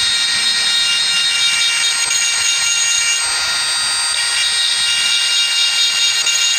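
Handheld electric rotary tool running steadily at high speed with a high-pitched whine, its small bit grinding the aluminium vane of a mechanical air flow meter to smooth the spots where the flap catches so it swings freely.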